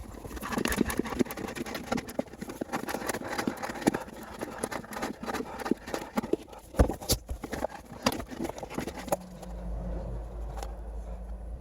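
Irregular clicks, knocks and clatter of hand work on an engine's spin-on oil filter and the catch can held over it as the old filter is taken off, with one sharper knock about seven seconds in. About nine seconds in, a low steady hum starts underneath.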